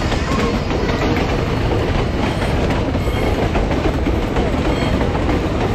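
Passenger train passing close by, a loud, steady sound of its carriages running on the rails.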